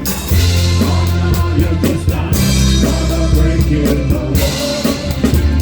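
Live soul band playing, heard from the drum kit: drums and cymbals over a steady bass line, with singing.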